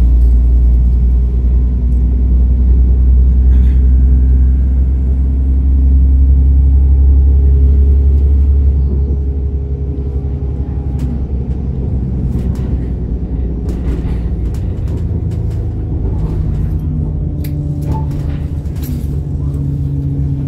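Class 172 Turbostar diesel multiple unit heard from inside the carriage: its underfloor MTU diesel engine and ZF transmission give a deep, loud steady drone under power. About eight seconds in, the drone drops away, leaving a quieter steady running sound with scattered clicks.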